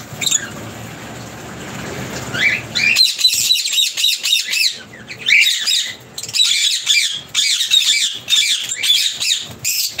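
Lovebirds chattering: a fast, continuous run of high chirps and squawks that starts about three seconds in. Before that, a steady rushing noise.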